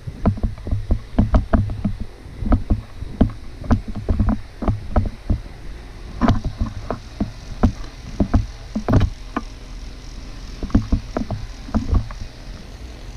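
Snow crunching and scraping in quick, irregular strokes, a few a second.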